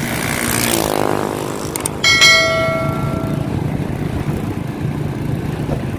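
A small engine running steadily underneath. About two seconds in, a sudden metallic clang rings out like a struck bell and fades within about a second.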